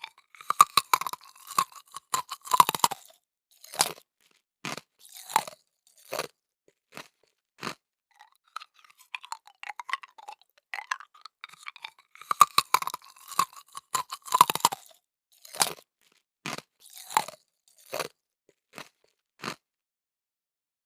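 Chewing of crispy lechon (roast pork skin), with crisp crunches in two dense flurries and slower single bites and chews between them, stopping near the end.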